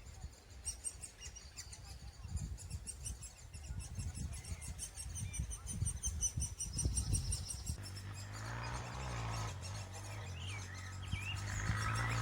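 Birds chirping: long runs of thin, high, rapidly repeated chirps, over a low rumble of wind on the microphone. A low steady hum comes in about eight seconds in.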